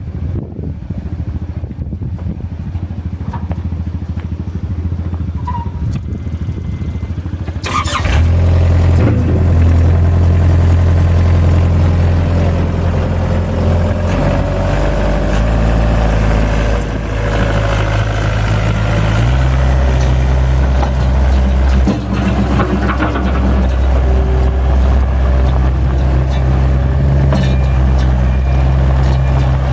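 Takeuchi TL130 skid steer's diesel engine running, at a low idle at first; about eight seconds in it speeds up and gets louder, and its pitch then shifts up and down in steps several times as the machine is worked.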